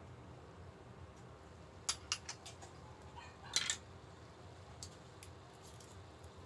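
A few light clicks and clinks of kitchenware being handled, a small dish and the pan, with the loudest cluster a little past halfway, over a steady low hum.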